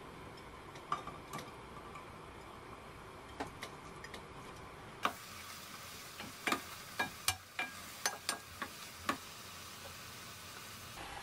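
A soy-sauce sauce heating in a ceramic saucepan with a steady faint sizzle. A few light clicks come in the first half. From about halfway, around ten sharp clicks and knocks follow as a spatula stirs sliced onion and garlic into the sauce.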